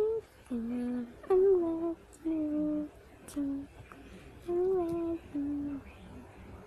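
A person humming a wandering tune in short held notes, about seven of them with short pauses in between, some sliding down at the end.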